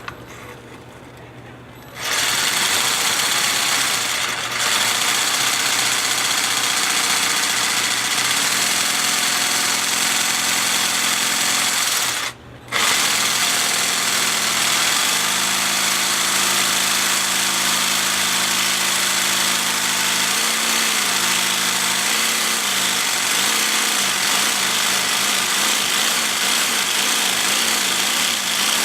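Cordless jigsaw with a diamond-grit tile blade cutting through wet ceramic tile: a steady, gritty motor-and-blade buzz. It starts about two seconds in, stops briefly near the middle, then runs on.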